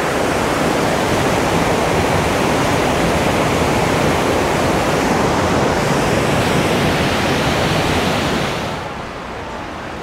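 Close waterfall: a steady, loud rush of falling water. About eight and a half seconds in it drops away and becomes quieter and duller.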